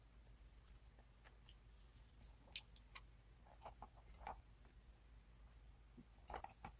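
Near silence with a few faint, scattered clicks over a low steady hum.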